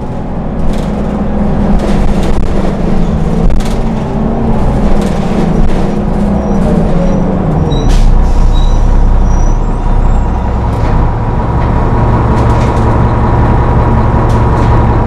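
1996 Orion V transit bus idling at a stop; about eight seconds in the engine note drops to a lower, steady idle. A few sharp clicks are heard over the engine.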